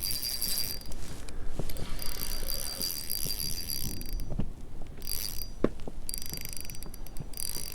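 Spinning reel's drag buzzing in several spells as a hooked pike pulls line off against a very thin braid, with short pauses between the runs.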